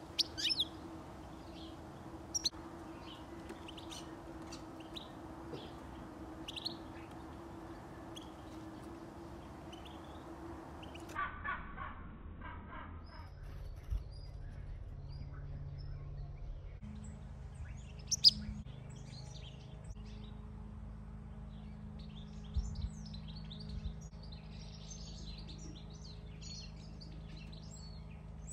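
Small songbirds chirping and twittering in short, scattered high calls, one louder call about two-thirds of the way through, over a faint steady hum.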